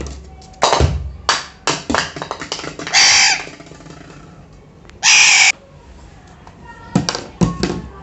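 Alexandrine parakeet giving two loud, harsh squawks, about three and five seconds in, among sharp knocks and taps of a plastic bottle on a tabletop.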